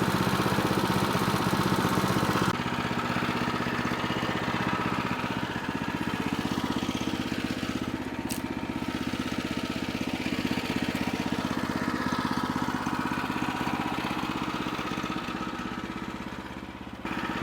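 Gas engine of a Woodland Mills portable bandsaw mill running steadily. About two and a half seconds in, the sound drops to a quieter, duller level and the engine runs on. There is a brief thin high squeal about eight seconds in, and a dip in level just before the end.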